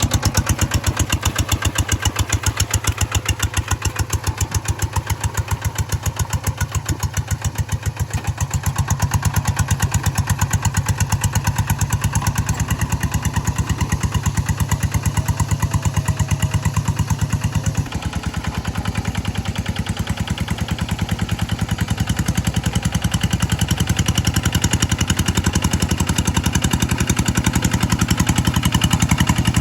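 G1000 engine on a hand tractor running steadily with a fast, even chugging pulse. It grows louder about a third of the way in, drops suddenly about two thirds in, then builds again toward the end.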